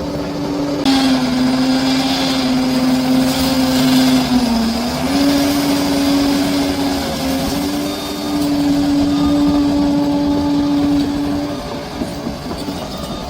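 Large crawler bulldozer's diesel engine running steadily under load, its pitch sagging briefly about four and a half seconds in and then recovering, with a stretch of higher-pitched clatter and hiss over the first few seconds.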